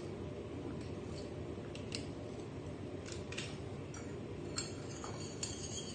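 Faint, scattered light clicks and taps of a metal teaspoon as instant coffee is measured out, over a low steady hum.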